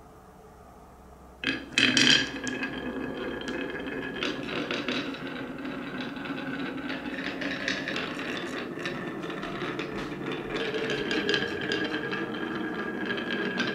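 Four marbles dropped onto a wooden HABA wave-slope marble run and rolling through its wavy grooves: a clatter as they land about a second and a half in, then a steady rolling sound with many small clicks.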